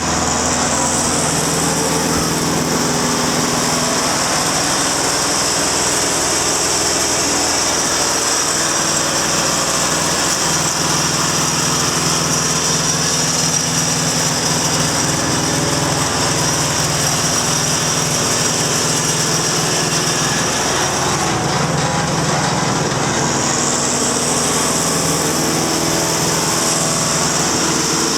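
Wood chipper's Deutz BF4M1011F four-cylinder turbo diesel running steadily at a constant speed. A high hiss over the engine note fades away briefly about two-thirds of the way through, then returns.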